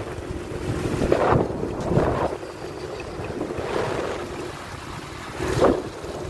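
Wind buffeting the microphone on a moving motorcycle, over a low running engine rumble, with several gusts swelling louder, the strongest near the end.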